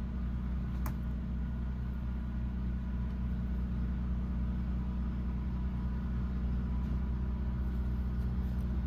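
Steady low mechanical hum with one faint click about a second in.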